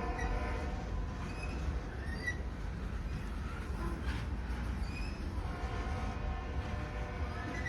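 Freight train rolling past with a steady low rumble and a few short high wheel squeaks. Its multi-note horn trails off at the start and sounds again for about two seconds near the end.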